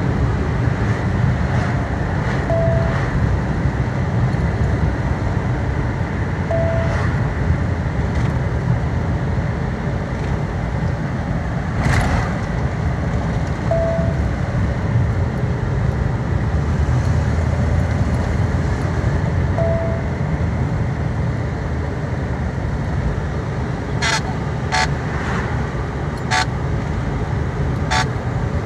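Steady road and engine noise heard from inside a moving vehicle's cabin: a continuous low rumble of the drive. A few faint short beeps come in the first twenty seconds, and a handful of sharp clicks come near the end.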